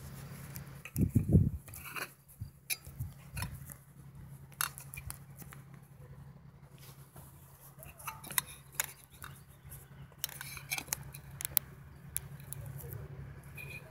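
Handling noise from a phone camera being grabbed and steadied: knocks and clicks, the loudest a few low thumps about a second in. Under them, a faint steady low drone of a diesel locomotive's engine approaching from afar.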